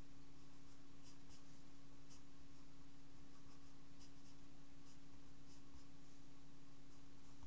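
Pencil drawing on paper: a dozen or so short, separate scratchy strokes as straight lines are ruled in freehand, over a steady low hum.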